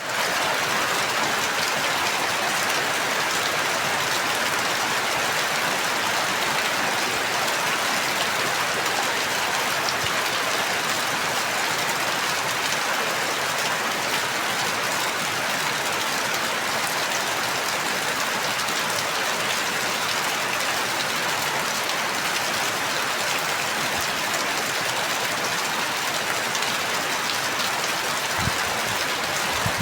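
Steady rain falling, an even hiss with scattered drops tapping on a surface.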